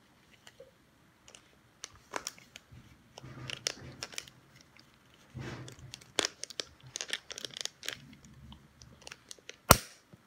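Rustling, crinkling handling noise with scattered light clicks, and one sharp knock a little before the end.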